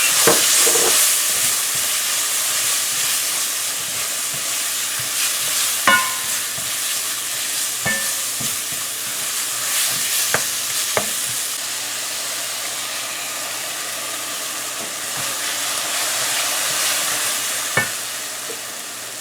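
Curry paste and chopped onions sizzling in hot vegetable oil in a pan while being stirred, a steady hiss broken by a few sharp clicks of the utensil against the pan.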